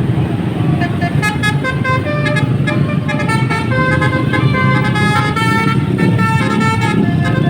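Basuri telolet bus horn playing a tune: a quick run of short horn notes that keep changing pitch, starting about half a second in, over the low rumble of the bus engine and traffic.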